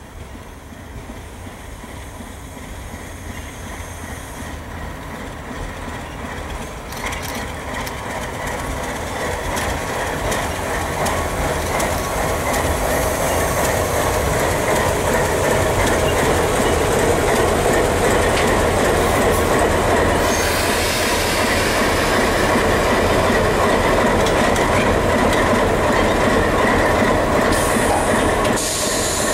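Train led by an Alco RS-3 diesel locomotive approaching, growing steadily louder over about twelve seconds, then running close by at full volume with the rumble of the engine and the noise of wheels on the rails.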